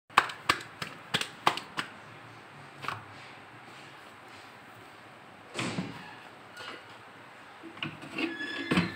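Kitchen handling as a rolled-out paratha is laid on the griddle and pressed flat by hand: a quick run of sharp clicks and knocks over the first two seconds, a dull thump a little past halfway, and a few more knocks near the end.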